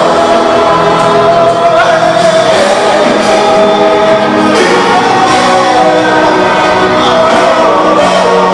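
Live pop concert music: a male lead singer singing into a microphone over a full band with guitars and congas, amplified through the sound system.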